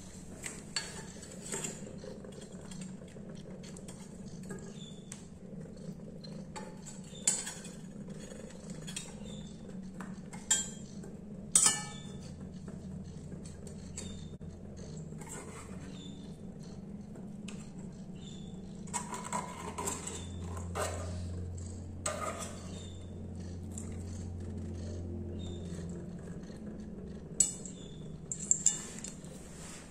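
A metal food can and its lid clinking and scraping against a ceramic plate as wet cat food is worked out of the can. Scattered sharp clinks, the loudest about a third of the way in and a cluster near the end.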